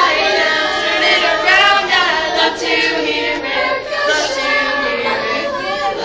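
Youth choir of girls and children singing together.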